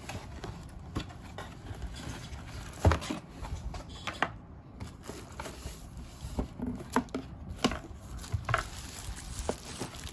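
Unboxing handling noises: scattered, irregular clicks and knocks as the items are taken out of the box and put down, the loudest about three seconds in.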